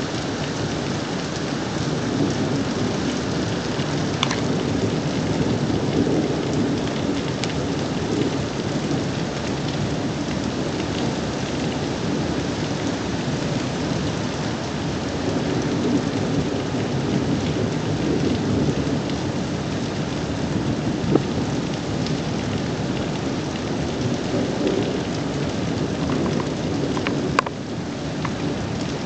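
Steady rain falling through a thunderstorm, with thunder rumbling under it and swelling several times. Two sharp clicks stand out in the second half.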